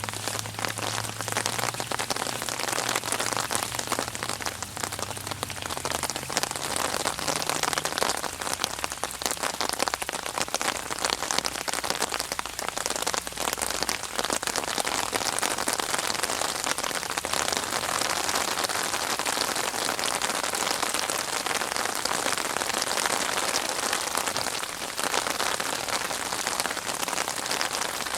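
Steady rain falling on a surface, a dense continuous patter of drops.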